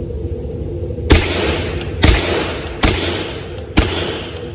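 AR-15 with a CMMG Bravo .22 LR conversion kit firing semi-automatic: four shots about a second apart, each followed by a short echoing tail.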